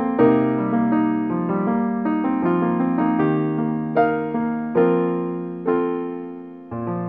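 Background piano music: a slow melody of struck notes, each fading away, with a chord struck near the end and left to ring.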